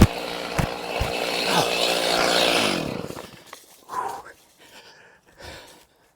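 Two-stroke chainsaw engine running, then shutting off about three seconds in, its pitch sinking as it winds down. Scattered knocks and a short breathy vocal sound follow.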